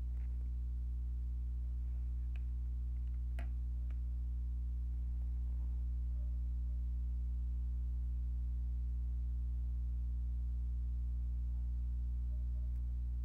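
Steady low electrical hum with its overtones, picked up by the recording setup. A few faint clicks come around two to four seconds in.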